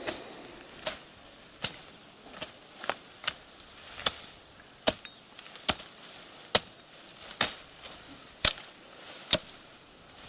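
Steady chopping: a blade hacking through willow brush and branches, about a dozen sharp chops a little under a second apart.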